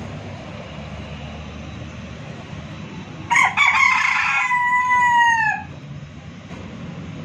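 A rooster crows once, starting about three seconds in: a rough, broken opening followed by a long held note that drops in pitch at the end, lasting about two and a half seconds in all.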